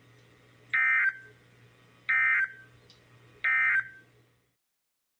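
Three short bursts of NOAA Weather Radio SAME digital data tones, the warbling end-of-message (EOM) code that closes an alert, spaced a little over a second apart. After the third burst the audio cuts off to silence.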